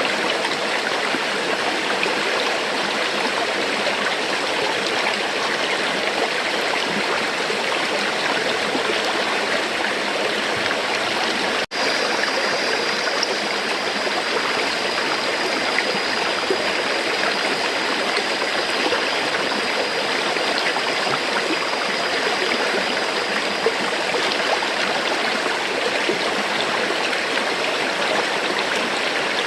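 River water flowing in a steady, even rush. The sound drops out for an instant about twelve seconds in.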